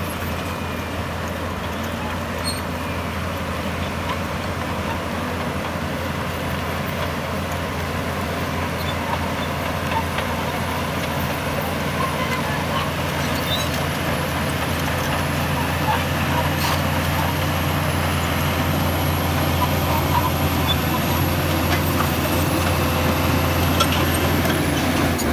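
Heavy diesel engine of construction machinery running steadily, growing gradually louder.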